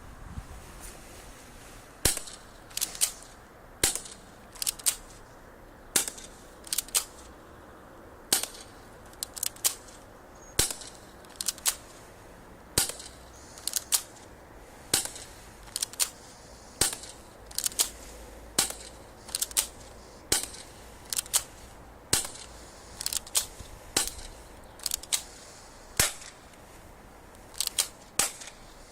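Airsoft gun firing single shots: sharp cracks at irregular spacing, roughly one or two a second, some in quick pairs.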